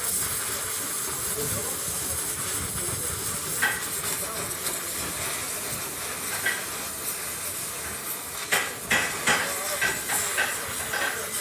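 Gas torch flame hissing steadily as it heats the lip of an aluminium alloy wheel rim, the warm-up before the bent rim is straightened. A few short sharp clicks or knocks come through, one about a third of the way in and several more near the end.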